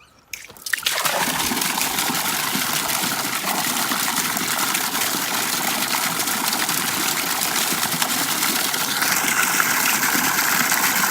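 Water running steadily into a livestock water trough, starting about a second in as the trough is filled.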